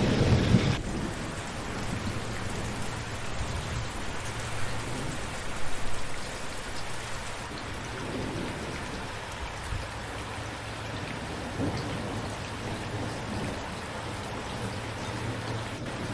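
Steady rain falling, with low rumbles of thunder: a heavy rumble cuts off abruptly just under a second in, and a short, louder swell comes about six seconds in.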